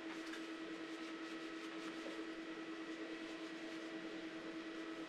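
Steady, even hum with a constant tone and a few fainter higher tones, like a running appliance or fan, unchanged throughout.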